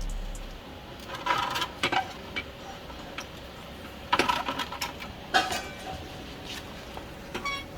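Metal tools and parts clinking and clanking in short bursts while a motorcycle's radiator is unbolted and taken off.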